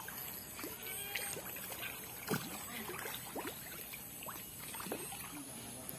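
Faint outdoor ambience by a fish pond: soft water sounds, with a few short, thin chirps scattered through.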